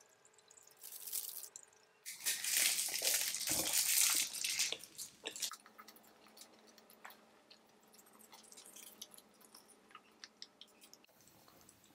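A long breath blown out through pursed lips into the microphone, about two seconds in and lasting around three seconds, as if puffing on a candy cigarette. Soft mouth clicks and chewing sounds follow.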